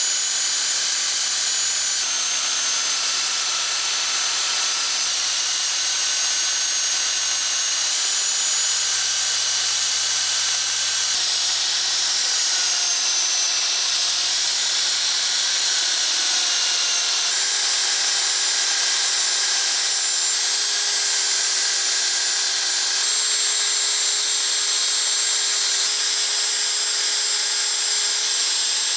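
Angle grinder in a bench stand spinning a felt polishing wheel, a steady high-pitched whine, as a small metal part of a jeweler's saw is buffed against the wheel. The pitch dips slightly now and then as the part is pressed on.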